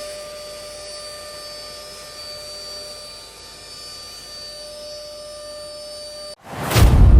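Steady machine whine with several held tones, typical of a CNC router's spindle motors running. About six seconds in it cuts off, and a brief rushing sweep leads into music.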